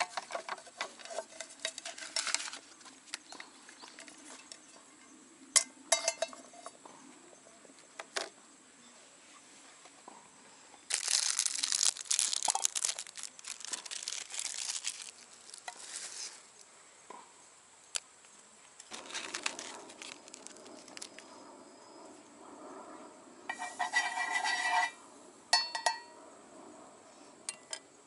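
Metal cookware of a Trangia Storm Cooker clinking and knocking as it is handled and assembled, with a few seconds of loud crinkling and tearing near the middle. In the last third, a cube of beef fat sizzles faintly as it melts in the frying pan.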